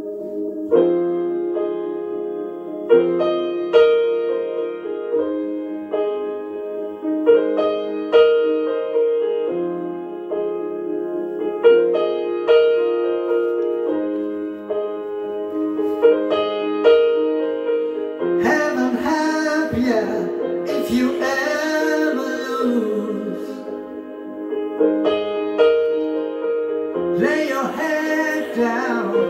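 A song's intro on keyboard: sustained chords struck every second or two and left to ring. About eighteen seconds in a singing voice comes in over them, pauses briefly, and resumes near the end, when a man is singing into a handheld microphone.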